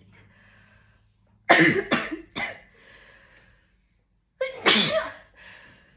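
A woman sneezing: a quick run of three sharp sneezes about a second and a half in, then one longer sneeze near the end.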